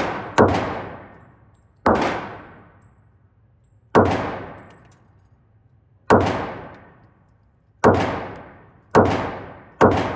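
Gunshots fired one at a time, seven shots spaced about one to two seconds apart, each followed by an echo that dies away over about a second.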